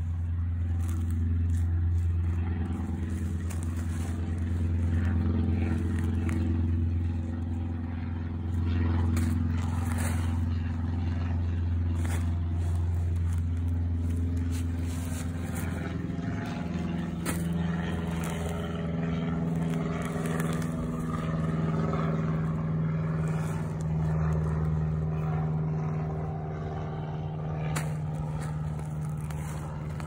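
A steady low motor hum whose tone shifts higher about halfway through, with gloved hands scraping and rustling through loose potting soil.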